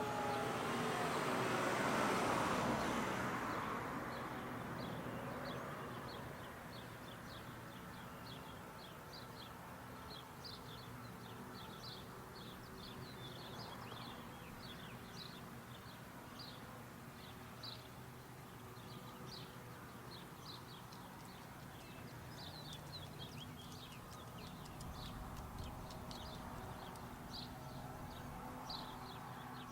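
Small birds chirping repeatedly in short, high calls over faint steady background noise. At the very start the siren's falling tone dies away, and a wash of noise fades out over the first few seconds.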